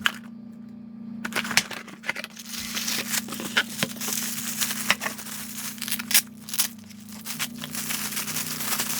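Packaging being unpacked by hand: paper and plastic rustling, crinkling and tearing, with many small clicks and taps as items are lifted out of the box.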